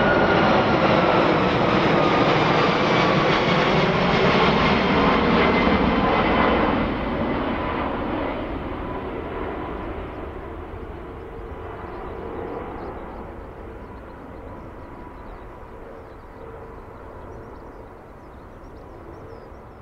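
Four Rolls-Royce Trent 500 turbofans of an Airbus A340-600 at take-off power passing overhead: a loud jet roar with whining tones that slide down in pitch as it goes by. After about seven seconds the sound begins to fade steadily as the airliner climbs away.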